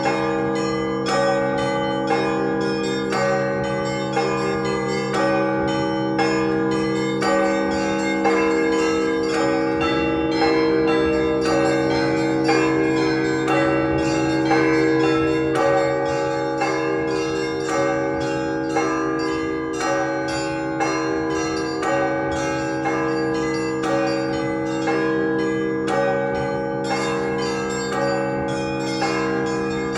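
Festal peal on a 48-bell Russian Orthodox bell set: the low tones of large bells hang under a rapid, unbroken patter of smaller bells struck several times a second.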